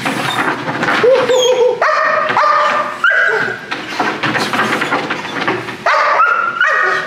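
Young working-dog puppy barking repeatedly under agitation from a handler's hand while tethered on a training table. The barks are high-pitched and whiny, with a lower drawn-out whine about a second in.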